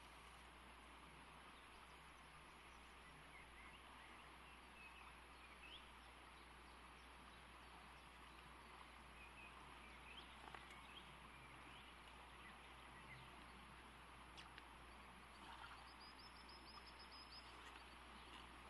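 Faint steady rush of flowing river water, with scattered distant bird chirps and a short high trill near the end.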